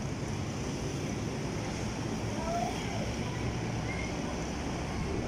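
Steady wind noise buffeting the microphone over the low rumble of a distant Airbus A380's jet engines as the airliner taxis slowly along the runway.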